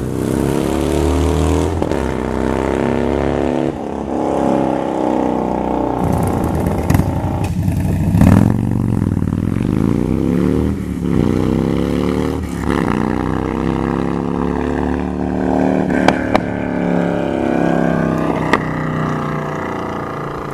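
Harley-Davidson Dyna's stock 96 cubic inch Twin Cam V-twin through an aftermarket 2-into-1 exhaust, revved up from idle and let fall back several times. A couple of sharp cracks come near the end.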